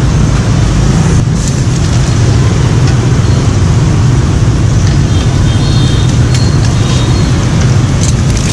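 Loud, steady rumble of motorbike and car traffic on the street, with hot oil in a wok sizzling as strands of fish-cake paste are pressed into it and fry.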